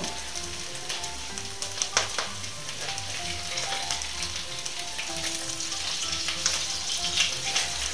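Fried potatoes and meat patties frying in oil in pans on the hob: a steady sizzle with scattered spitting crackles.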